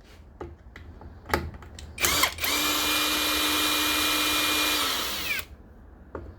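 Cordless drill-driver with a brief blip, then about three seconds of steady spinning with a whine, winding down as it stops, while backing out a screw on a string trimmer's engine. A few light knocks of handling come before it.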